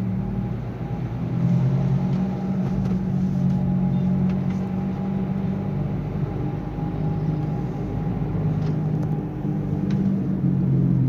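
Nissan Sunny on the move heard from inside the cabin: road and drivetrain rumble with a steady low humming drone. The hum comes with road speed, and the mechanic traces it to a road wheel that vibrates through the shock absorber when it is spun by hand.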